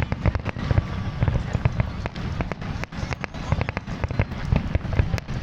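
Fireworks display going off: many sharp bangs, several a second at irregular spacing, over a continuous low rumble.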